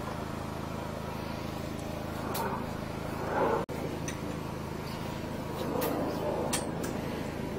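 High-pressure sewer jetter's engine and pump running steadily, with a few light clicks over it.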